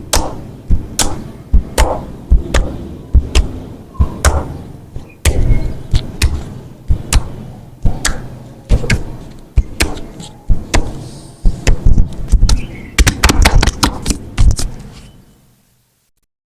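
Percussive massage strikes on a person's back: firm thumping slaps in a steady rhythm of about two a second, with a quicker flurry near the end before they stop.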